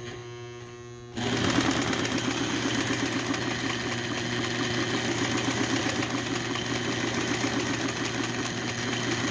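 Vintage Brother electric sewing machine, freshly rewired. A low steady hum for about a second, then the motor is pedalled up and the machine runs steadily at speed, working fine.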